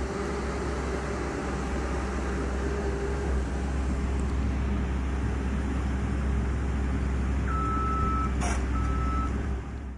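Backhoe engine running steadily, with its reversing alarm giving two beeps of about half a second each near the end and a single sharp clank between them.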